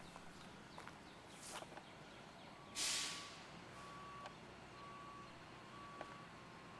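Vehicle reversing alarm beeping steadily about once a second, starting a little under halfway through. A brief loud hiss comes just as the beeping begins, with a few faint clicks scattered throughout.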